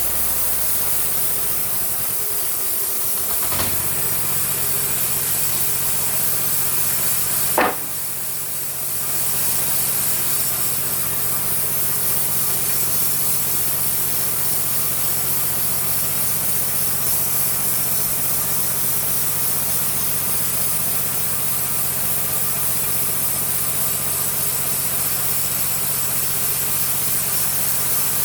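Homemade sawmill running steadily, its engine humming under a high hiss of the saw. Two sharp knocks come about three and a half and seven and a half seconds in, the louder second one followed by a brief drop in level.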